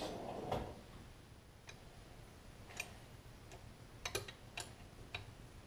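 Faint, irregular metallic clicks of small wrenches on the two jam nuts of a rear brake master cylinder's pushrod as they are worked loose, with a quick cluster of clicks about four seconds in.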